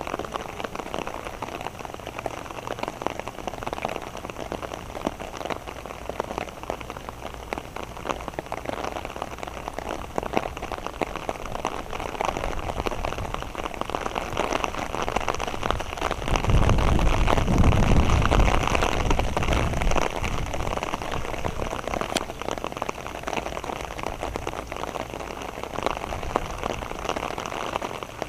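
Rain falling steadily, a dense patter of drops. About sixteen seconds in, a louder low rumble comes in for a few seconds and then eases off.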